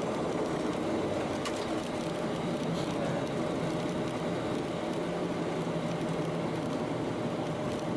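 Cockpit noise of a Boeing 737 rolling fast down the runway: a steady rush of engine and air noise with a faint steady tone, no change in level.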